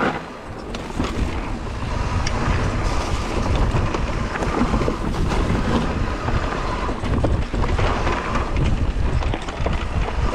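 Wind buffeting the microphone over a steady low rumble as an electric mountain bike rolls along a dirt trail, with scattered sharp clicks and rattles.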